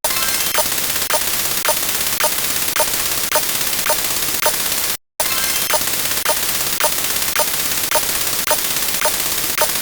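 Harsh, dense static-like noise with a sharp click a little under twice a second. It cuts out to silence for a moment about five seconds in, then starts again the same.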